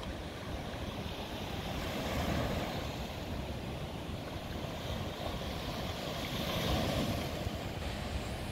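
Small waves breaking and washing up on a sandy beach, swelling and easing gently, with wind buffeting the microphone.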